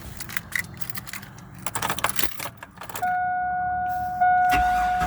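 Keys jingling and clicking in the ignition of a 2001 Chevy Blazer. About three seconds in, a steady dashboard warning chime starts, pulsing about once a second. Near the end the 4.3 Vortec V6 begins to crank over on the starter, on a restart attempt after the loose distributor clamp has been dried and tightened.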